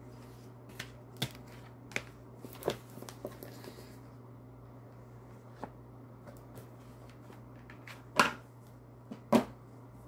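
Oracle cards and their deck handled on a tabletop: a series of light taps and clicks, with two louder knocks near the end, over a steady low hum.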